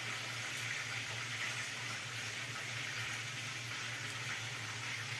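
Chicken hamonado with pineapple sizzling in a frying pan: a steady hiss over a low hum.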